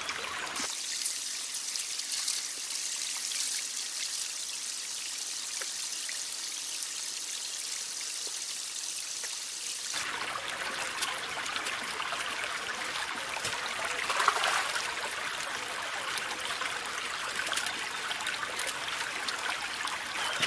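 Shallow stream trickling and babbling over stones, steady throughout; about halfway through the water sound becomes fuller and deeper.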